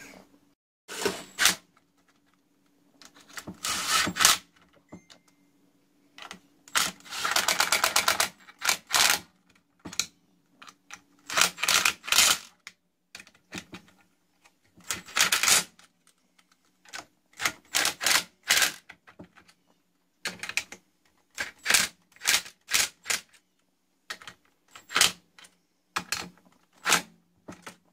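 Old Dressmaker sewing machine's mechanism clattering in short bursts of rapid ticking, about a dozen bursts with pauses between, over a faint steady hum.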